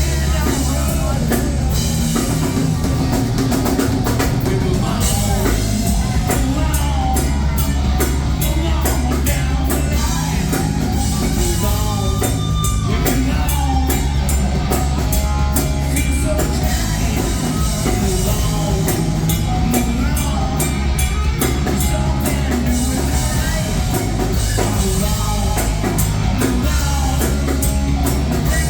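Rock band playing live with drum kit, bass and singing, loud and steady.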